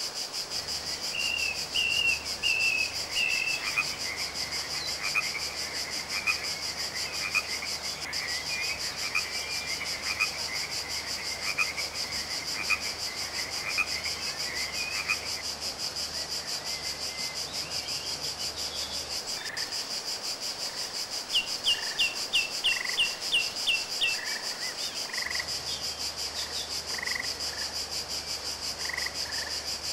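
Steady high insect chirring, with a songbird warbling over the first half. A little past the middle comes a quick run of about nine sharp notes, and short calls repeat about once a second through the second half.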